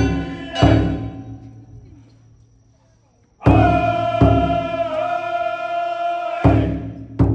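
Festival music: heavy drum strikes with a long held pitched tone between them. The tone fades away after the first pair of strikes, then sounds again with the next strike and holds steady for about three seconds.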